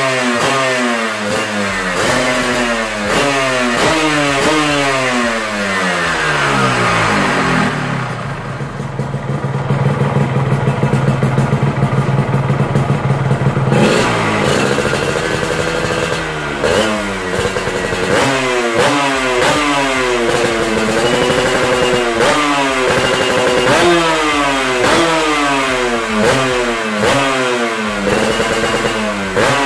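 Yamaha RXZ's single-cylinder two-stroke engine revving through an aftermarket expansion-chamber exhaust: repeated throttle blips whose pitch rises and falls. About eight seconds in it is held at a steady rev for roughly six seconds, drops off sharply, and the blipping goes on.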